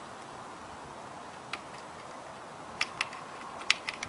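A few sharp, scattered clicks and taps from handling parts on a lawn mower, over a steady low hiss.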